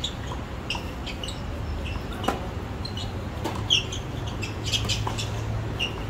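Tennis rally on a hard court: several sharp racket-on-ball strikes, with short high chirps throughout.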